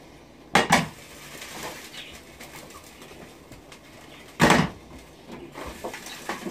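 Pots and pans clattering on a stovetop: a frying pan handled and stirred with a wooden spoon, with two sharp knocks about half a second in, another just past four seconds, and lighter clinks between.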